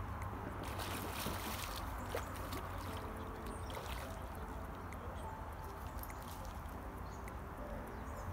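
Light, scattered water splashes from a hooked jack pike being played to the bank, over a steady low rumble of wind.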